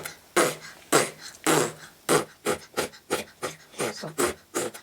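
Someone panting in quick breathy puffs, about two a second, some with a little voice in them.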